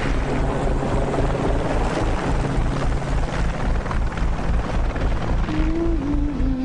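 Background music with a fast, throbbing low pulse under held droning tones; a higher sustained tone enters near the end.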